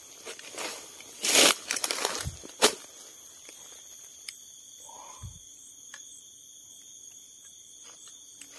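Rustling of grass and brush and footsteps in the first few seconds, with a sharp click and a couple of low thuds. After that a faint, steady, high-pitched hum.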